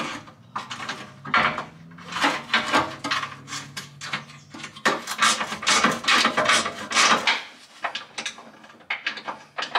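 Aluminum skid plate sections and their bolts and washers clinking, rattling and scraping against each other and the frame as they are fitted by hand. The clatter is an irregular run of sharp metal clinks that grows sparser after about seven seconds.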